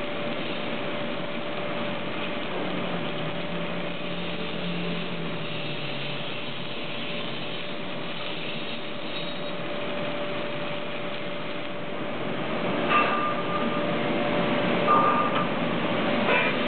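Two arc-welding torches on an automatic prop welding machine welding a steel tube: a steady noisy hiss over a constant hum. About three-quarters through, the welding gives way to a few loud metal clanks from the machine.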